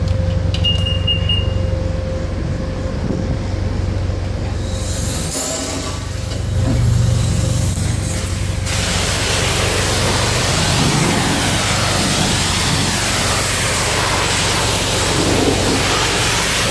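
Self-serve car wash: a short high beep about a second in, a steady low hum, then about nine seconds in the high-pressure spray wand cuts in with a loud, steady hiss of water spraying onto the car.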